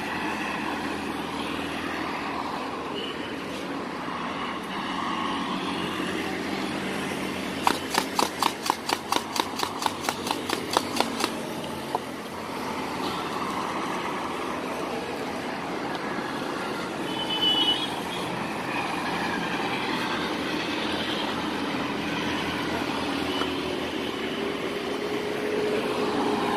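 Steady road traffic. About eight seconds in, a quick run of sharp clicks, roughly five a second for about three seconds, as a spoon knocks against a plastic cup while chanachur is mixed in it.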